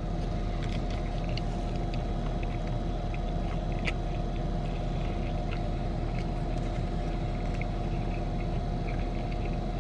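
Steady hum inside a parked car's cabin from the idling engine and air conditioning, with faint scattered clicks of chewing.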